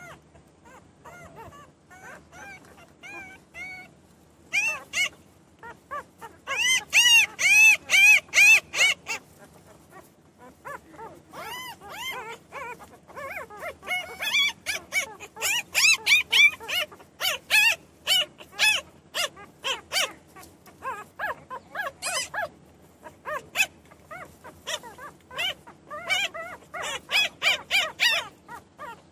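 Newborn puppies crying and whining: many short, high, arching squeals in quick runs, with a loud burst of rapid cries about seven seconds in and another stretch in the middle.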